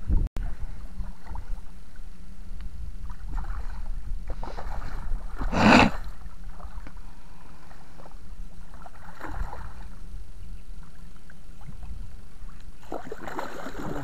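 A hooked fish splashing and thrashing at the surface close to the bank as it is brought over a landing net, with one loud splash about six seconds in and more churning of the water near the end. A steady low wind rumble on the microphone runs underneath.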